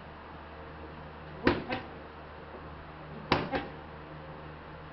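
Boxing glove punches smacking against the trainer's hands in quick pairs, one-two combinations: two doubles, about a second and a half in and again near three and a half seconds.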